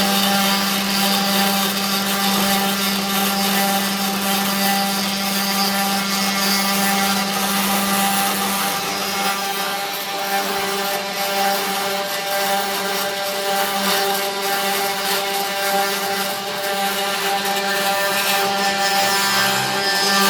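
Home-made Grbl CNC router running, its spindle motor giving a steady hum with a high hiss on top. The low hum weakens about nine seconds in and comes back near the end.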